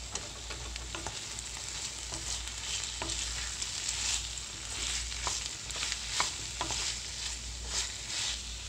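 Sliced ivy gourd frying in oil in a kadai, a steady sizzle, while a wooden spatula stirs it through onion and tomato, with irregular scrapes and taps of the spatula against the pan.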